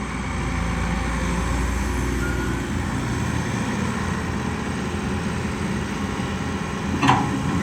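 Heavy diesel engine running steadily under load. A deep low rumble is heavier for the first few seconds, then eases. A short higher-pitched sound comes near the end.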